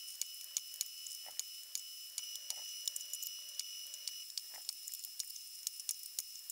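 Pneumatic rivet squeezer setting aluminium rivets through the RV-10 stabilizer skin into the spar flange: rapid sharp clicks, a few a second, over a faint steady hiss, with three duller knocks.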